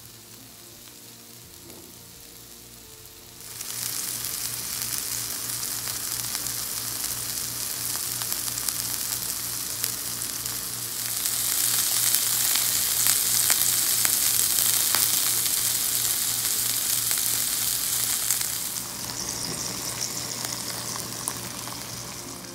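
A hamburger patty sizzling and frying on a hot electric griddle. The sizzle comes in loud a few seconds in, is loudest around the middle, and eases off somewhat near the end.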